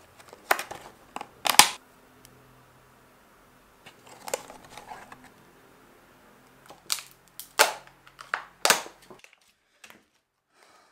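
Sharp clicks and snaps with some plastic rustling as small items and their packaging are handled and set down on a desk. The loudest snaps come about one and a half seconds in and again about seven and a half seconds in.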